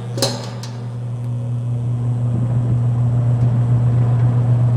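1960s Lakewood X-22 box fan with metal blades starting up on low speed. A click from its metal push-button speed switch comes just after the start, then a steady low motor hum grows gradually louder as the blades spin up.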